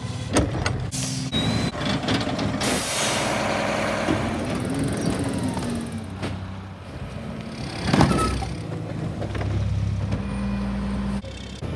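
Diesel engine of an International rear-loader garbage truck with a Heil PowerTrak body running, with air-brake hisses and the clatter and bangs of carts being emptied into the hopper. The sound changes abruptly several times.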